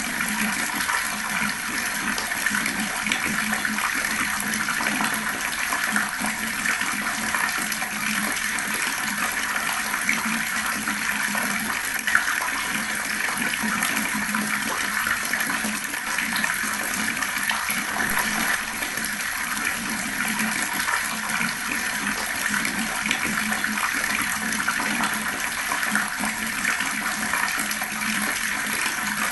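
Fast-flowing water running in a steady, unbroken rush.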